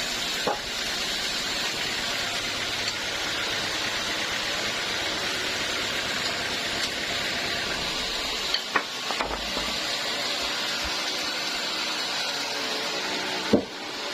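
Sawmill machinery running with a steady hiss-like noise, broken by a few short knocks: once about half a second in, a cluster a little past the middle, and once near the end.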